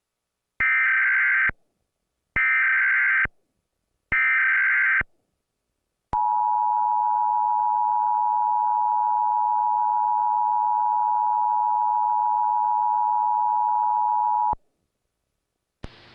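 Emergency Alert System test signal: three short bursts of the warbling digital header tones, each about a second long, then the steady two-tone attention signal held for about eight seconds before it cuts off.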